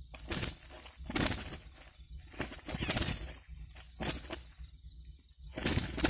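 Irregular bursts of rustling and crackling from a nylon cast net and dry grass as a caught quail is untangled by hand, with the bird's wings fluttering against the mesh.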